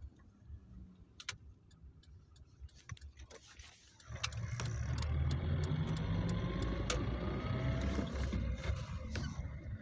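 Lada Kalina 1.6 heard from inside the cabin: a few faint clicks at first, then about four seconds in the engine and running noise come up loudly and hold steady, with a faint rising whine over them.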